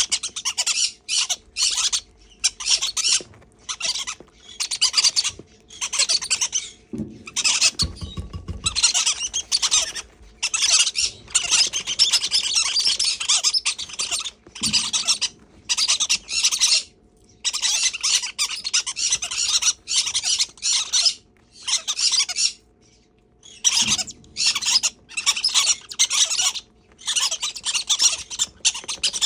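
Green-cheeked conure chicks giving harsh, hissing begging calls in rapid repeated bursts while being hand-fed, with a few faint low thumps in the background.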